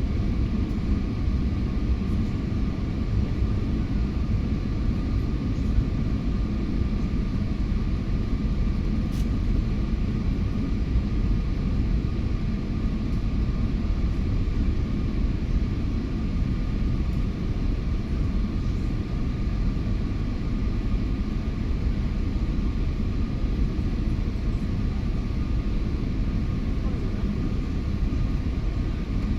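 Steady rumble of an airliner cabin in flight, the engines and rushing air blending into one even noise, with a faint steady whine above it.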